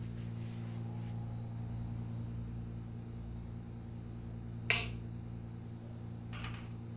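A steady low hum with two short, sharp snaps: the first and louder about two-thirds of the way in, the second about a second and a half later.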